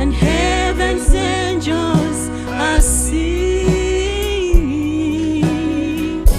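Gospel music: a held melody line with vibrato over steady bass notes, with a regular beat a little faster than once a second.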